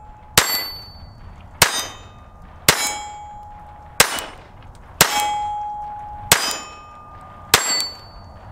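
Ruger LCP II .22 LR pocket pistol firing seven shots at a slow, steady pace, about one a second. Most shots are followed by a short metallic ring.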